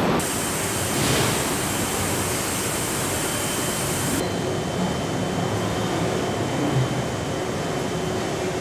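Steady factory-floor ambience of an automated car-body assembly line: an even hiss of air and machinery with a faint steady tone. The high hiss drops away abruptly about four seconds in.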